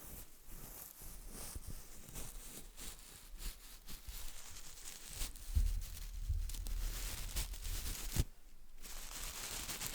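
Paintbrush bristles squeezed and worked between fingers right at the microphone: a dense crackling, rustling texture full of tiny clicks. A low rumble of handling comes in around the middle, and the sound pauses briefly near the end.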